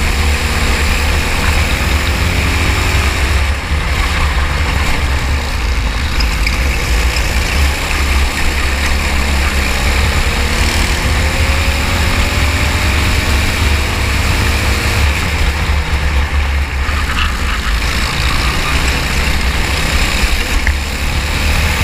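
Racing kart engine running, its pitch rising and falling with speed, over a heavy low rumble.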